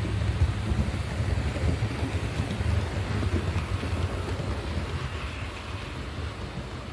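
H0-scale model train running along the track, a steady low rumble of the locomotive and its coaches rolling past, easing slightly near the end.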